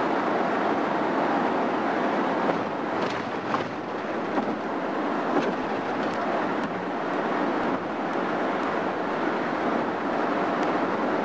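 Steady road and wind noise inside a vehicle cruising at highway speed on a concrete interstate, with a few faint ticks around three to five seconds in.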